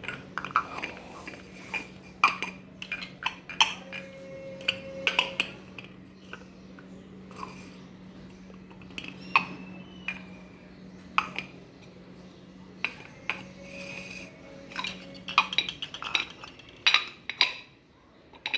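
Hard plastic toy pieces clicking and clattering as they are handled, over a steady low hum that stops a few seconds before the end.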